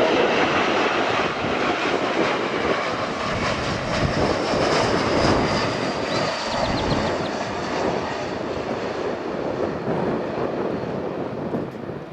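Jet airliner's engines passing close by: a steady loud rush with a faint high whine that falls slightly in pitch partway through, easing a little near the end.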